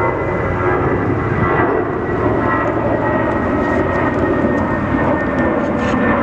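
Jet airliner's engines passing close by: a loud steady roar with a high whine that slowly falls in pitch.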